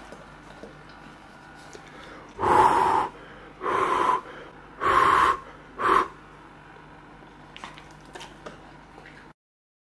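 Four loud, breathy huffs of breath close to the microphone, each about half a second long and a little over a second apart.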